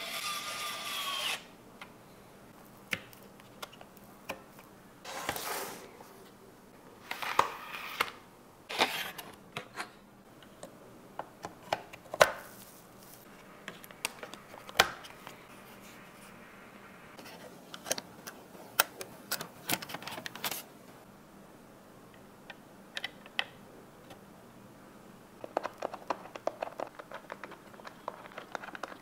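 Hands assembling a PC: scattered sharp clicks and taps of plastic and metal parts, short rubbing and rustling scrapes, and a quick run of small rapid clicks near the end. A brief pitched sound that falls in pitch plays right at the start.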